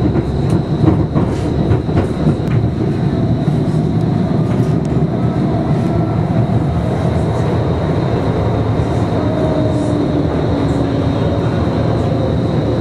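Electric streetcar running along its track, heard from inside the car: a steady rumble of wheels on rail, with light clicks over the first five seconds or so and a faint whine in the second half.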